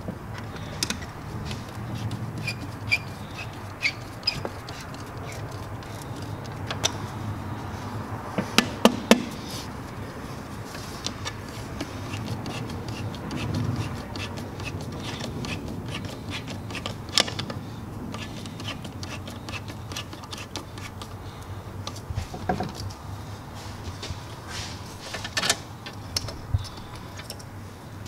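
Scattered clicks, taps and light knocks of hand work on an engine's intake: the intake tube being pushed onto the throttle body and its hose clamp tightened with a screwdriver, with a cluster of sharper clicks about nine seconds in, over a low steady hum.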